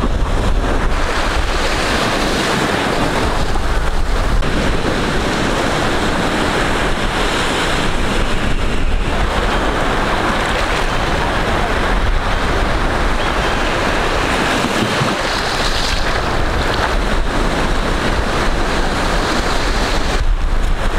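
Sea surf washing and breaking around the waders' legs, with wind buffeting the microphone.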